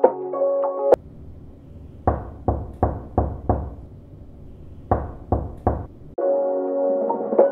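Knocking on a door: five quick knocks, a pause of about a second, then three more. Background music stops about a second in, leaving the knocks alone, and comes back near the end.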